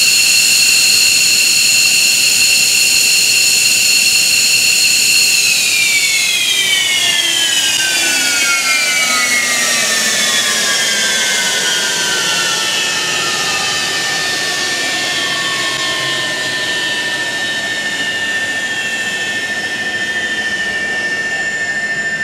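F-15J Eagle jet engine whining at idle. About six seconds in, the engine is shut down and its turbine whine glides steadily down in pitch as it spools down, while a single steady high whine carries on.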